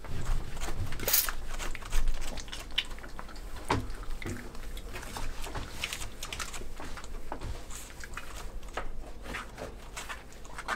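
Hand wiping down a stainless steel kitchen counter, with rubbing and irregular small clicks and knocks as the cleaner container is handled.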